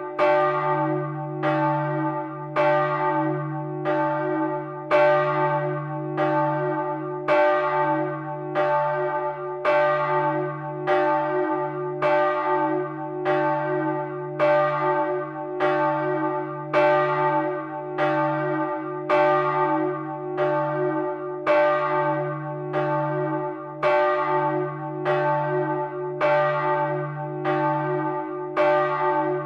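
Bronze church bells swinging in their tower and struck by their clappers, recorded up close in the bell chamber: a steady run of strokes, a little more than one a second, over a continuous deep ringing hum.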